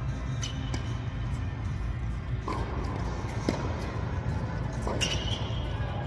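Tennis ball struck by rackets and bouncing on the hard court during a serve and short rally: several sharp pops spread over the seconds, over a steady low rumble of the indoor hall.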